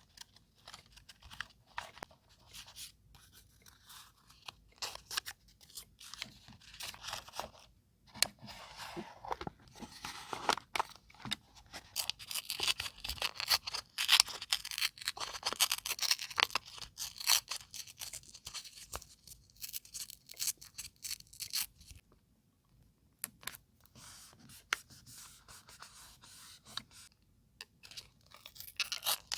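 Close-up paper handling for scrapbooking: paper rustling and tearing with many small irregular clicks and taps, busiest in the middle and briefly pausing a little past two-thirds through.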